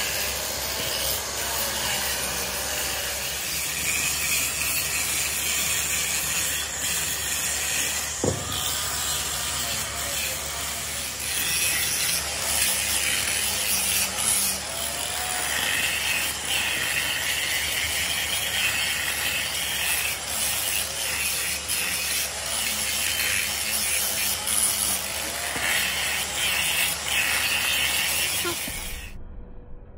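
Handheld angle grinder grinding the steel flange of a heavy-duty truck wheel hub: a continuous high-pitched grinding that swells and eases as the disc is pressed onto the metal. It stops abruptly near the end.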